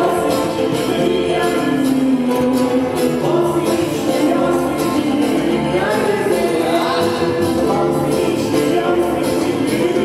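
Live band playing instrumental music with a steady percussion beat, and a few rising melodic slides near the middle.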